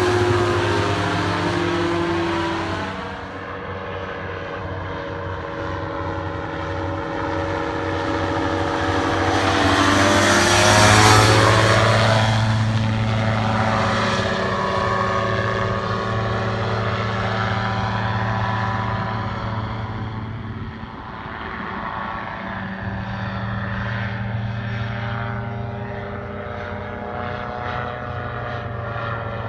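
Dominator gyroplane's engine and pusher propeller droning steadily in flight. It grows loudest on a low pass about ten seconds in, the pitch dropping as it goes by, then quieter as it flies away.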